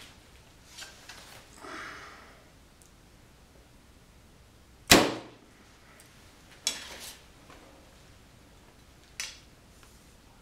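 A compound bow being shot: one loud sharp crack of the string and limbs about five seconds in, dying away quickly. It is followed by two smaller clicks as the bow is handled, with soft rustling near the start.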